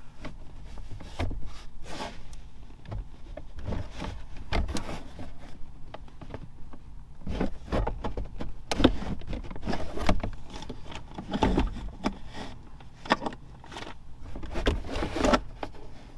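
Plastic lower dash trim panel of a 2015 Dodge Grand Caravan being wiggled and shifted by hand: irregular plastic clicks, knocks and scrapes, with louder knocks in the second half.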